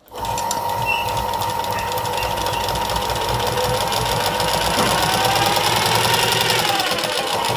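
Straight-stitch sewing machine starting up suddenly and running steadily as it stitches down a single-fold seam, with a fast even rattle of needle strokes over a steady whine.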